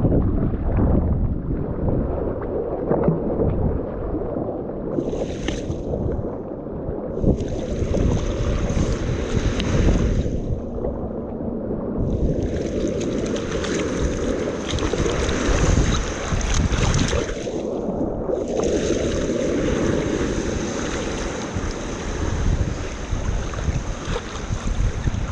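Strong wind buffeting the microphone in a continuous low rumble. Over it come long surges of waves splashing and hissing around the kayak, beginning about five seconds in with a few short breaks.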